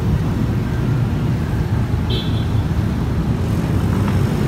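Road traffic: a steady low rumble of cars and motorbikes passing, with a short high chirp about two seconds in.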